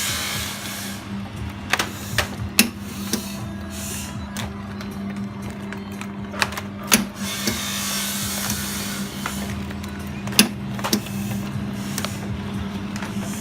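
Continuous band sealer running: a steady motor hum with sharp clicks here and there, and two stretches of hiss and rustle, one at the start and one about seven seconds in, as plastic bags are fed through and heat-sealed.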